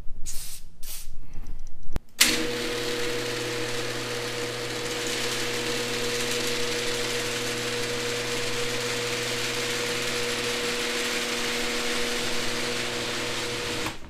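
Electric garage door opener switching on about two seconds in and running steadily, with a hum and several fixed tones under a hiss, as it raises the door, then stopping near the end. The noise comes from the overhead opener unit itself; the freshly greased hinges and rollers make no noise.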